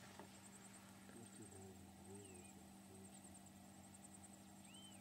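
Near silence: faint outdoor quiet with a steady low hum, a faint pulsing high-pitched chirr throughout, and two brief faint chirps, one about two seconds in and one near the end.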